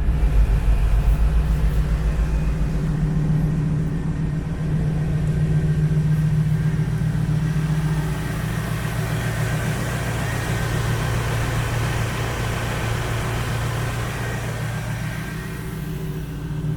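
1972 Chevy Nova engine idling steadily with the air conditioning switched on. About halfway through, the idle settles slightly lower as a rushing hiss grows.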